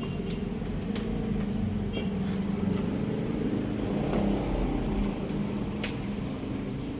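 Steady low rumble of a motor vehicle running, swelling a little midway, with a few faint clicks.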